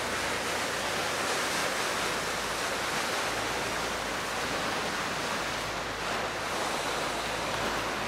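Steady rush of wind and choppy river water, with a low engine drone underneath as a harbour ferry passes close by.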